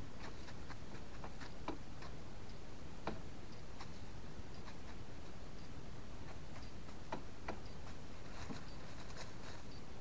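Pheasant pecking at feed: irregular sharp taps and clicks, a few at a time in clusters, over a steady low background noise.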